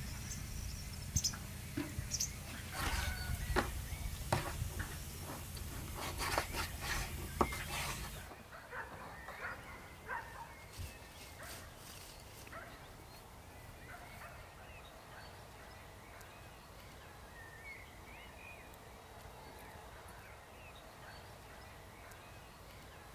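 Bird calls outdoors: a stretch of sharp knocks and clicks with a low hum for the first eight seconds, then it goes suddenly quieter, leaving faint short bird chirps scattered through.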